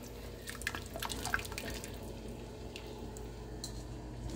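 Broth dripping and a few light clicks of a utensil as pieces of cooked meat are lifted out of a pot of pozole into a container, with the clicks mostly in the first second and a half.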